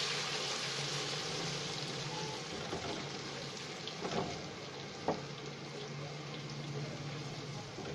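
A fresh batch of raw potato fingers deep-frying in hot oil, sizzling steadily, with a spatula knocking lightly against the pan twice, about four and five seconds in.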